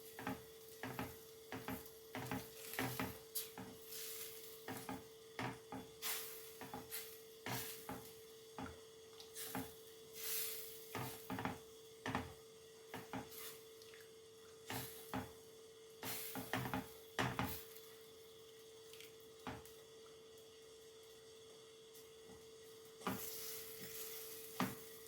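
Utensil stirring chicken in milk sauce in a frying pan: irregular light knocks and scrapes against the pan, pausing for a few seconds near the end, over a faint steady hum.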